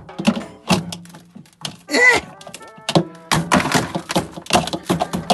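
A run of sharp knocks and thuds, sparse at first and coming thick and fast over the last two seconds, with a brief vocal cry about two seconds in.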